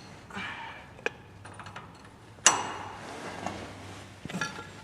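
Metal hand tools clinking and clicking against a bolt on the truck's underside, with one sharp ringing metallic clank about two and a half seconds in.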